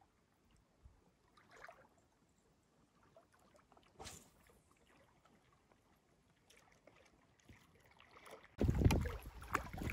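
Near silence with a few faint ticks, then, about eight and a half seconds in, a sudden loud low rumble of wind buffeting the microphone.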